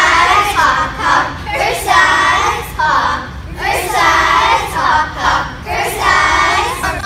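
A group of children's voices chanting together in unison, in short rhythmic phrases.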